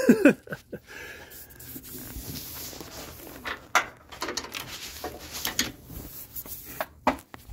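Handling noise: scattered light knocks, taps and rubbing, with close brushing against the microphone, as hands work among parts in a truck's engine bay. No power tool runs.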